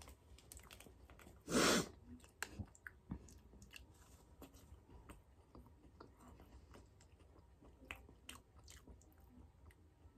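Quiet chewing of a gummy candy, with many small mouth clicks. About one and a half seconds in there is a short, louder rush of noise.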